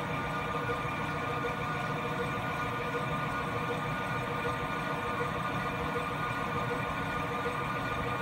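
CNC lathe running steadily as a boring bar cuts the bore of a cast-aluminium K04 turbo compressor housing, a constant machine hum with several steady whining tones over cutting noise.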